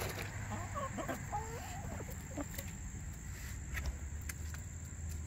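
Domestic hens clucking softly in short wavering calls during the first half, then a few light clicks, all over a steady low background rumble.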